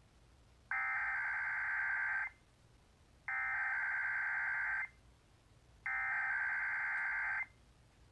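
Emergency Alert System SAME header: three identical bursts of screeching digital data tones, each about a second and a half long with about a second of quiet between them, marking the start of a weekly EAS test.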